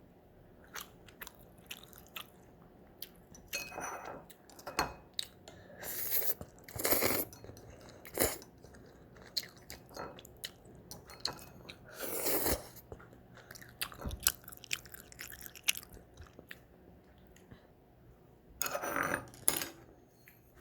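Someone eating ramen: chewing and crunching with scattered sharp clicks and a few short, louder noisy bursts.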